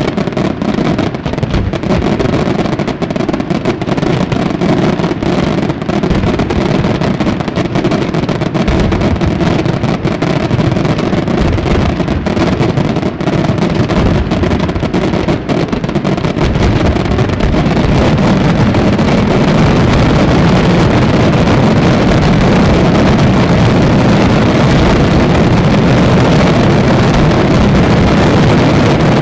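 Aerial fireworks barrage: many shells bursting in rapid succession, the bangs running together into a continuous rumble that grows louder and denser about two-thirds of the way through.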